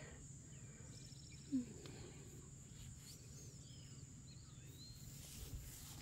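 Quiet outdoor ambience: a steady low hum with faint, short bird whistles and a quick trill in the distance. A brief low blip about a second and a half in is the loudest moment.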